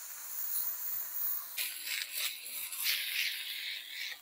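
Beef smash-burger patty sizzling on the hot ceramic non-stick cook top of a Pit Boss Ultimate griddle as it is pressed flat with a spatula. The sizzle swells louder about one and a half seconds in and again near the end.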